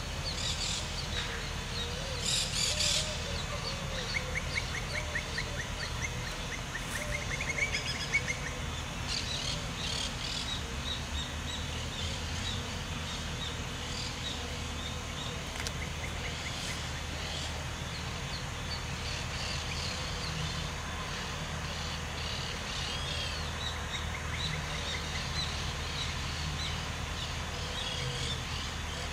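Several birds chirping and calling, including a rapid trill a few seconds in. Underneath runs a steady low rumble from a distant EMD GR12W diesel locomotive as it slowly approaches.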